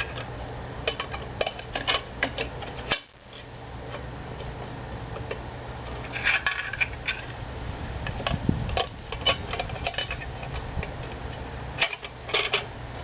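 Metal tire spoons and the wheel being handled, with irregular clinks and knocks against the rim, over a steady low hum.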